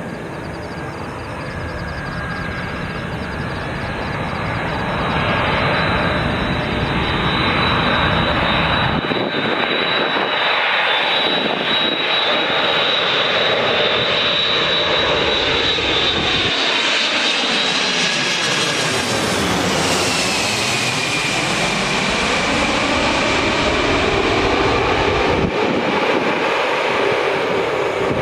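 Boeing 747-400ERF freighter's four turbofan engines on landing approach, growing louder as it nears and passing close by about two-thirds of the way in. Its high fan whine drops in pitch as it goes past.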